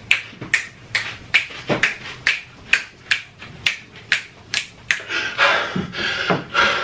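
A steady beat of sharp finger snaps, a little over two a second. About five seconds in, a man's heavy panting takes over as he catches his breath.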